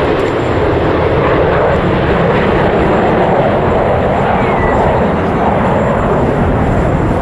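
Loud, steady jet noise of Red Arrows BAE Hawk T1 jets, their Adour turbofan engines, flying past in display, swelling slightly midway.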